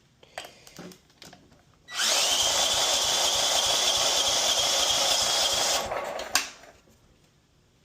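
Mower engine being cranked over by its electric starter for a compression test at full throttle: a steady whine with a fast, even chug of the compression strokes, running about four seconds before it stops suddenly, then a single sharp click.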